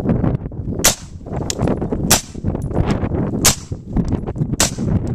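Suppressed AR-15 with a QSM titanium thread-on suppressor firing 5.56 mm, 55-grain rounds. There are four loud shots evenly spaced about a second and a quarter apart, with fainter sharp cracks between them.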